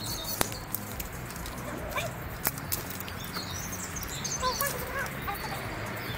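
Giant wooden Mikado sticks knocking together as they are gathered up and handled, a few sharp clacks, with birds chirping briefly about four and a half seconds in.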